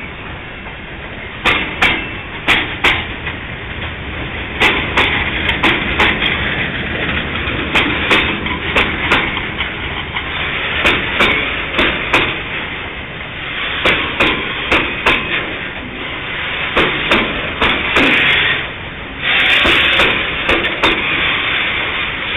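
Freight train wagons rolling past, their wheels clacking over rail joints in close pairs at uneven intervals over a steady rumble and hiss. The hiss swells louder near the end.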